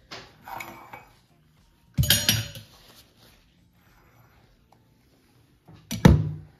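Dishes and metal utensils clattering as a mug and spoon are handled and set down. Small knocks come first, then a loud ringing clatter about two seconds in and a heavier knock near the end.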